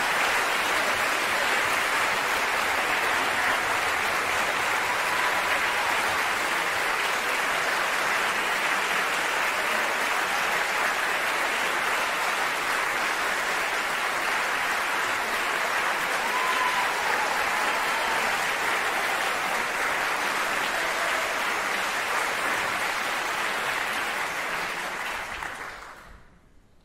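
Theatre audience applauding steadily, then cutting off sharply near the end.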